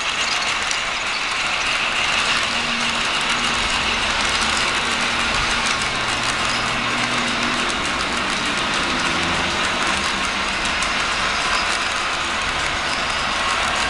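Model trains running on a layout: a steady whir of locomotive motors and gearing, with the rattle and click of small wheels rolling over the track as a locomotive with a string of freight cars passes close by.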